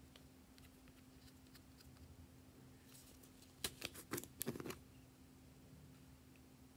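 Small plastic bottle being twisted open by hand: a quick cluster of sharp plastic clicks and crackles around the middle, with a few faint ticks of handling before it.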